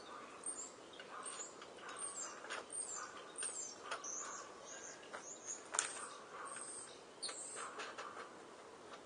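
Small birds chirping: repeated short, high calls that drop quickly in pitch. Scattered sharp clicks and knocks, the loudest about six seconds in.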